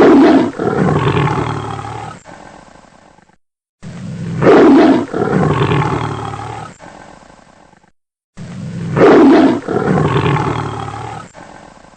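Tiger roaring: the same recorded roar played three times in a row, each one starting loud and fading away, with short silent gaps between.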